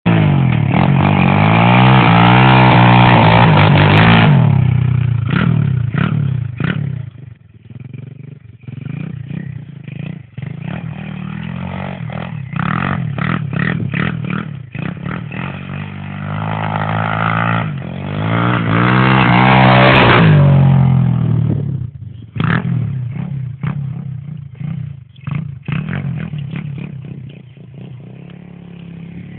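A 125cc engine revving hard as the machine skids on ice. It climbs to a high rev twice, at the start and again around 17 to 20 seconds in, each time cut off sharply. Between the high revs come stretches of short, choppy throttle blips.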